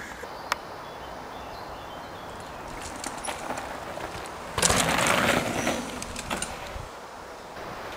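Mountain bike riding past on a dirt trail: tyres rolling on dirt and the bike rattling over the ground, with a few sharp clicks. It is loudest for about a second just past the middle, as the rider passes close.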